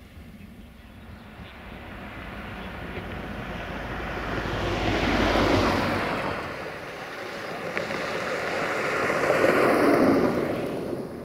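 Two cars passing one after the other, each a rush of tyre and engine noise that swells and fades; the first peaks about halfway through and the second, slightly louder, near the end.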